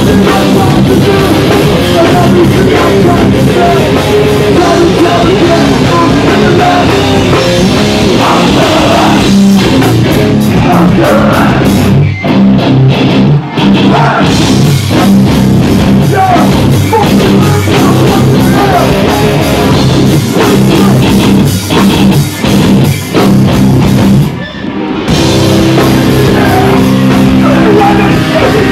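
Hardcore band playing live and loud: distorted guitars, bass and drum kit at full volume. The band plays a run of short stop-start hits about twelve seconds in, then stops briefly near twenty-four seconds before coming back in.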